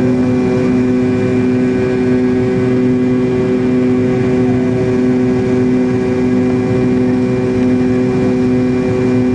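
Steady cabin noise of an MD-80 airliner climbing after takeoff. The tail-mounted Pratt & Whitney JT8D turbofans make a constant drone carrying several steady tones over the rush of air along the fuselage.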